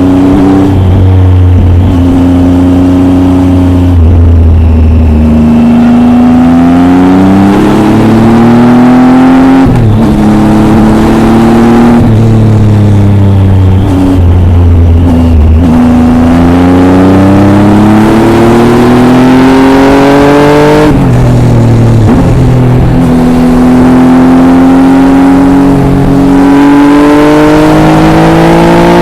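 Triumph Tiger 800 XRx's inline three-cylinder engine through an Arrow exhaust, heard from on board while riding. The note climbs through the revs several times, breaking off sharply between climbs as the rider shifts or rolls off the throttle, and holds steady in between.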